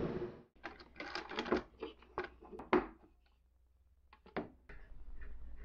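A running drill press cuts off abruptly right at the start. Then comes a string of light wooden clicks and knocks as the freshly bored board is handled. A short pause follows, then a few more knocks, and a faint low hum near the end.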